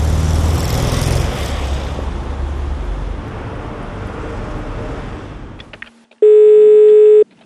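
Street traffic: a car passing with a low rumble, fading away over about five seconds. Then a few clicks and a single steady one-second beep: a telephone ringback tone heard down the line while a call is placed.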